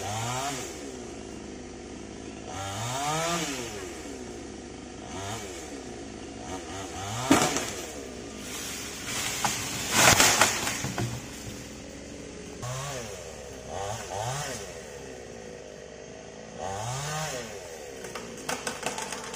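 Chainsaw revved up and let back down in short bursts, about eight times, its pitch rising and falling with each one. The loudest moment is a noisy burst about ten seconds in, and there is a quick run of clattering near the end.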